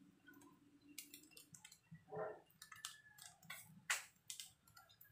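Faint, scattered crackles and pops of rice frying in a pan on a gas stove, with one sharper click about four seconds in.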